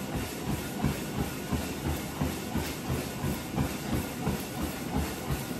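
Treadmill running, with a steady rhythm of feet thudding on the moving belt about three times a second over the steady hiss of the belt and motor.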